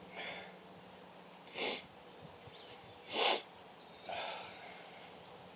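A person sniffling repeatedly from a runny nose caused by seasonal allergies: about four short sniffs, the two loudest in the middle.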